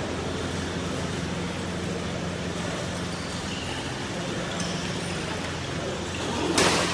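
Steady low hum of indoor hall noise during a badminton doubles rally. Near the end comes one loud, sharp hit of a racket on the shuttlecock, a smash.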